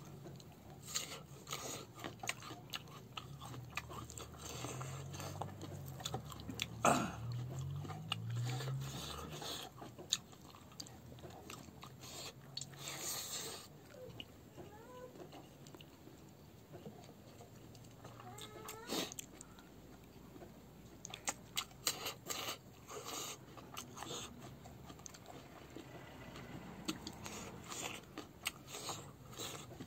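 Close-miked chewing of a person eating a meal of rice and fried food by hand, with many irregular short mouth clicks and smacks.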